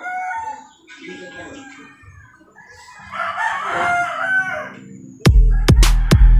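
A rooster crowing, once at the start and again in one long crow a few seconds in, then loud music with a heavy beat starts about five seconds in.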